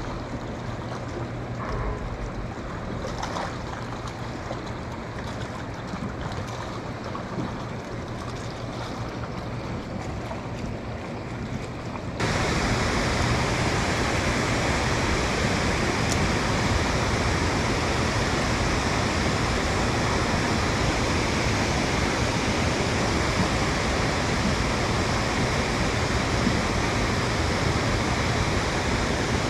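Water lapping around a small boat, with a few faint clicks of fishing line and lure being handled. About twelve seconds in, a sudden change to a louder, steady rush of water pouring down the face of a dam.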